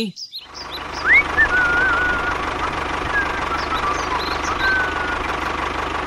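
Tractor engine running steadily with a fast, even low chugging, with a few birds chirping over it in the first half.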